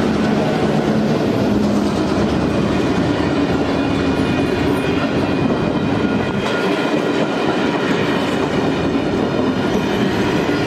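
Heritage passenger train passing close by: a loud, steady rush of carriage wheels running on the rails, with the drone of the leading diesel locomotive 42103 fading over the first couple of seconds as it moves away.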